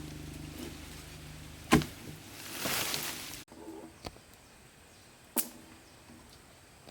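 A small engine, most likely a chainsaw, idling steadily, then cut off by a single sharp knock, the loudest sound here. A brief rushing whoosh follows, then quiet with a few scattered clicks.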